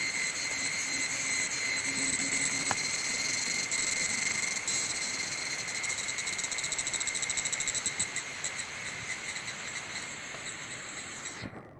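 Forest insects calling in a steady, high-pitched chorus, with a rapid pulsing through the middle. The sound drops out abruptly just before the end.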